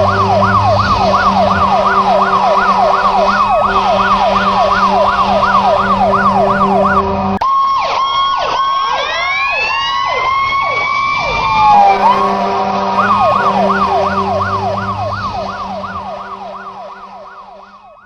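Emergency-vehicle electronic siren in a fast yelp, its pitch sweeping up and down about three times a second. For a few seconds in the middle a jumble of several overlapping siren glides takes over, then the fast yelp returns and fades out near the end.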